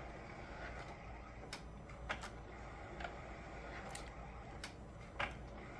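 Epson FastFoto FF-680W sheet-fed photo scanner feeding prints through, quiet, with faint irregular clicks as the photos are picked and ejected.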